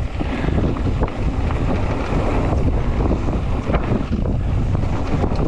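Wind rushing over the microphone as a mountain bike rides down a dirt flow trail, with the steady rumble of the ride and a few sharp knocks from the bike over the ground.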